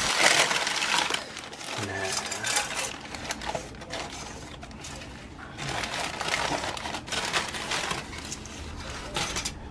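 Paper wrapping around a takeaway shawarma wrap rustling and crinkling as hands fold it back, in several spells, loudest in the first second.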